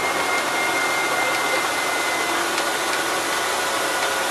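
Bus engine and drivetrain running under way, heard from inside the cabin at the rear over the engine: a steady whir with a faint high whine.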